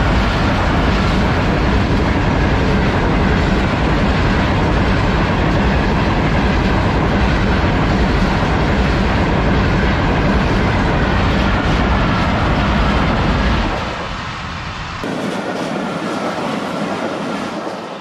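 Pakistan Railways passenger coaches rolling past on the rails over a short concrete canal bridge, wheels clattering on the track. About fourteen seconds in the loud running noise drops away to a much quieter sound.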